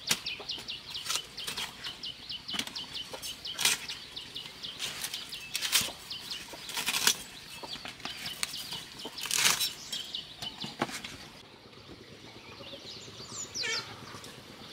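Large machete-like blade hacking through leafy plant stalks: a series of sharp chops, roughly one a second, with the leaves rustling, stopping after about eleven seconds.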